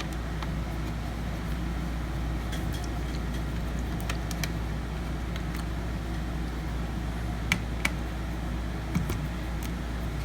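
A steady low hum with a few small sharp clicks in the second half, as small screws are worked out of a laptop's hard-drive mount with a screwdriver.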